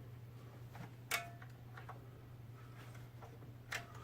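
A few short, light clicks from handling the computer, the loudest about a second in and another near the end, over a steady low hum.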